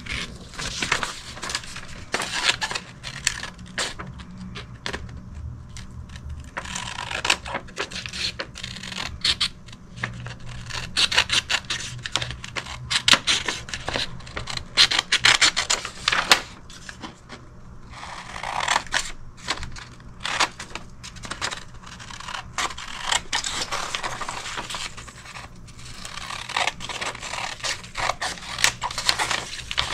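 Irregular scratching and scraping with many small clicks, coming in bursts a few seconds long over a faint steady hum.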